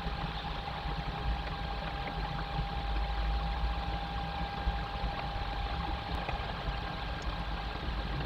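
Steady low rumble and hiss with a constant thin whine, the background noise picked up by a nest-box webcam's microphone; no bird calls.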